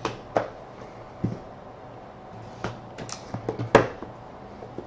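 A cardboard trading-card hobby box being cut open and its lid lifted off by hand, heard as a string of sharp clicks and taps. The loudest tap comes about three-quarters of the way through.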